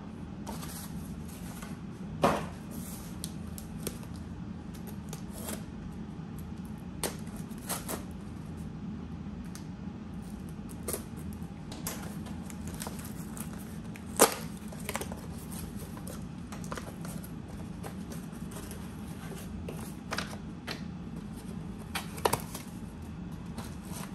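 Small cardboard boxes and packaging being handled and opened by hand: scattered light taps, scrapes and rustles, with a sharper knock about two seconds in and another about fourteen seconds in, over a steady low hum.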